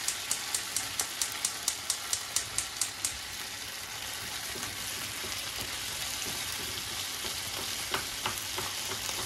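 Ground beef sizzling and spattering in hot oil in a nonstick frying pan on a gas burner that is turned up too high. For the first three seconds a gas-range spark igniter clicks about four times a second as the burner knob is turned, then the frying goes on steadily, with a few spatula taps against the pan near the end.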